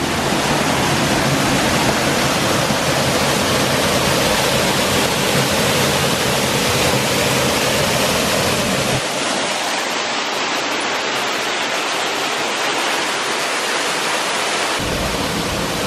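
Waterfall pouring steadily, a constant loud rush of falling water. The deep low rumble drops away for several seconds after about nine seconds in, then returns.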